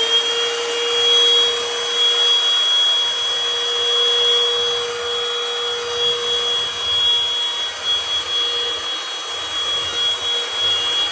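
Vacuum cleaner running steadily at full speed: a high, even whine over a rushing hiss of air.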